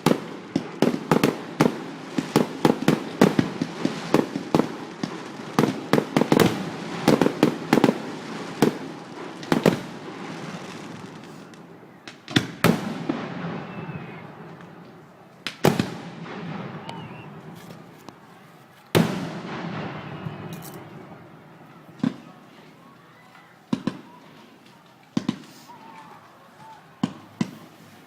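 Aerial fireworks exploding: a rapid volley of bangs with crackling for about the first ten seconds, then thinning to single loud bursts a few seconds apart, each trailing off in a fading crackle, with a few smaller pops near the end.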